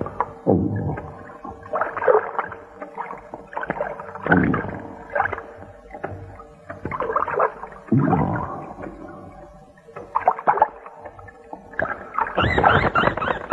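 Soundtrack of eerie wailing tones that slide in pitch, swelling and fading every couple of seconds over a faint steady drone.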